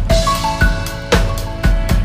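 Background music with a steady drum-kit beat, kick and snare about twice a second, and a short repeating melody line.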